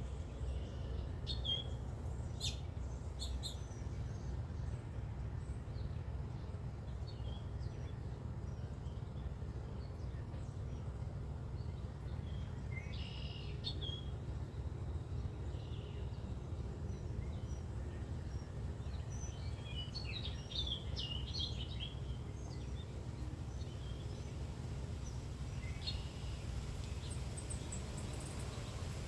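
Birds chirping now and then, in short scattered calls with a busier cluster a little past the middle, over a steady low rumble.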